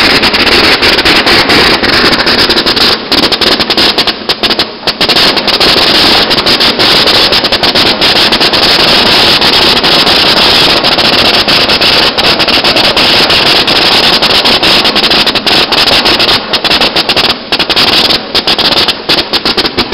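Colour-sorting machine running with olives pouring through it: a loud, dense, continuous rattling crackle of many rapid clicks.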